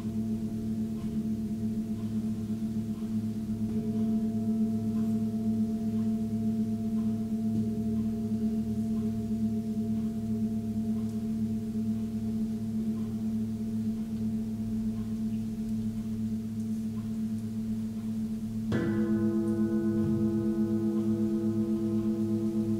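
Tibetan singing bowls of seven-metal alloy ringing in sustained, layered tones with a wavering pulse. About nineteen seconds in, another bowl is struck and its ring joins in, a little louder.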